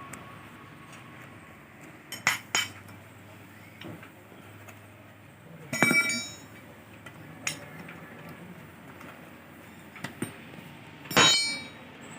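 Metal tools and engine parts clinking against each other during the strip-down of a Tata Ace engine: a handful of separate sharp clinks, two of them louder and ringing briefly, one about halfway through and one near the end.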